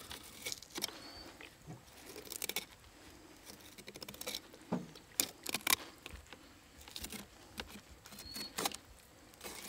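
Silver Stag fillet knife cutting along a scaled croaker's backbone on a plastic cutting board: faint, scattered clicks, crunches and scrapes of the blade through flesh and bone.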